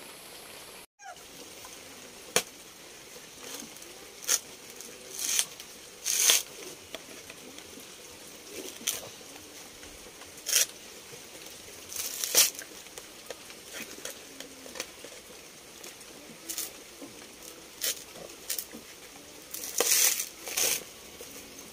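Machete blade knocking and prying at a coconut husk: irregular sharp knocks and short scraping, tearing bursts as the fibres are ripped off, some in quick pairs.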